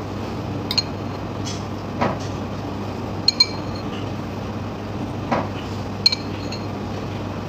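A spoon clinking against a soup bowl while someone eats, about four short ringing clinks, two of them close together, over a steady low hum.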